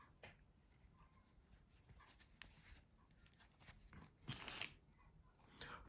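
Quiet hand-handling of small mobile-phone parts: a few faint clicks and taps, with a brief louder rubbing scrape about four seconds in, as the parts are fitted into a phone housing.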